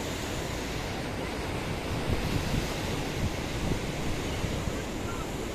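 Sea waves breaking on a beach: a steady rush of surf that swells a little about two to three seconds in, with wind buffeting the microphone.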